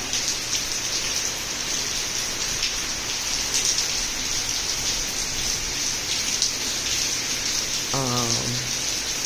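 Heavy hurricane rain falling steadily, a dense even hiss with scattered drops striking close by.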